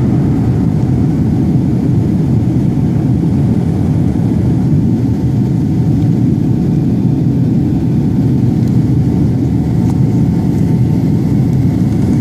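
Airliner taking off: a steady, dense rumble of engines and rushing air, heaviest in the low end and holding an even level.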